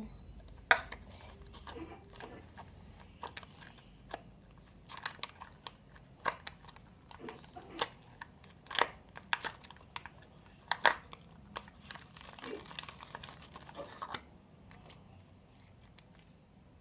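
Slime being handled and squeezed, giving irregular sharp clicks and crinkly noises, thickest in the middle and dying down near the end.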